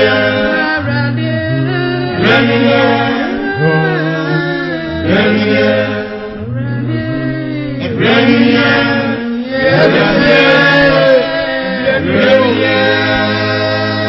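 Gospel song sung in Twi: a man's and a woman's voices singing over a steady bass line that moves from note to note about every second.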